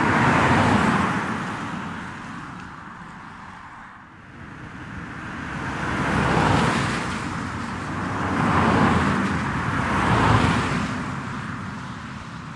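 Non-electric (petrol and diesel) road vehicles passing one after another on a wet road, each swelling and fading as it goes by, with engine noise and tyre hiss on the wet surface. One passes just after the start, then three more in quick succession from about six seconds in.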